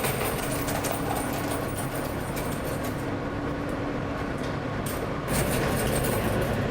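Subway train running, a steady rumble and noise heard inside the car, growing a little louder just over five seconds in.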